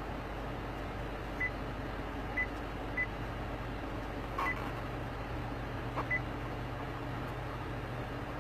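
Steady low hum of a car cabin on the move, with five short high electronic beeps at uneven intervals.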